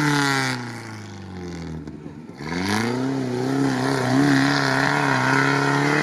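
UAZ off-roader's engine under throttle as it pulls away over rough grass: the revs fall away over the first two seconds, then climb again about two and a half seconds in and hold fairly steady.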